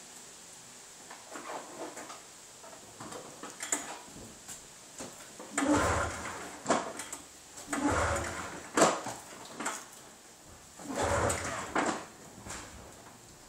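Several pulls on the recoil starter of a Polaris Indy Classic 500 snowmobile's two-stroke twin, each a short rattling burst, with the engine not catching.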